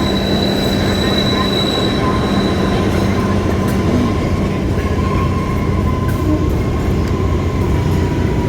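Kalka–Shimla narrow-gauge toy train running, a loud steady rumble of wheels on rails. Over it are thin, steady squealing tones: a higher squeal fades out a couple of seconds in while a lower one carries on.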